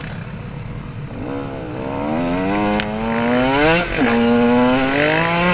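Dirt bike engine accelerating: the pitch climbs, drops sharply near the middle as it shifts up a gear, then climbs and holds.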